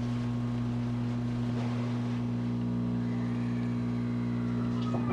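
Running noise inside a JR West 223 series 1000-subseries motor car fitted with a Hitachi VVVF inverter: a steady low hum with several fixed tones from the traction motors and inverter, together with wheels on rail. There are a few faint clacks near the end.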